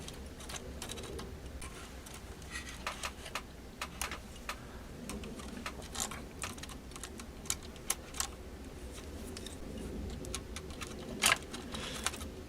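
Scattered small clicks and taps at irregular intervals as the cuckoo clock's chain and small works are handled.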